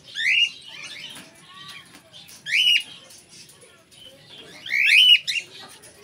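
Cockatiel calling three times, each a short, loud chirp that rises and then falls, spaced about two seconds apart, the last one slightly longer and broken into two or three notes.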